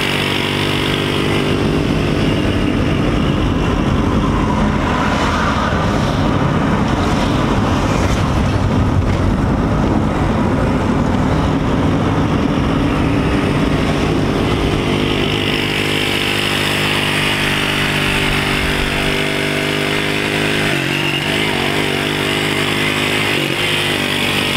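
Small motorcycle engine running steadily at cruising speed close alongside, heard over road and wind noise from a moving car. The engine's pitch shifts briefly near the end.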